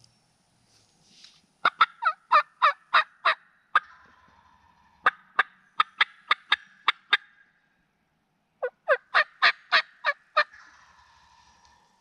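Wild turkey gobbler gobbling loudly at close range, three times in a row: each gobble is a rapid rattle of notes lasting about two seconds, with short pauses between.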